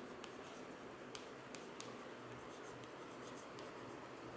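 Chalk writing on a chalkboard: faint scratching with scattered light ticks as the letters are formed, a few sharper taps a little past a second in.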